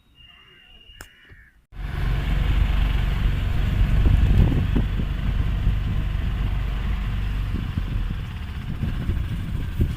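Quiet for the first couple of seconds, then a sudden jump to a motorboat engine running steadily and loudly, with a low rumble carrying through to the end.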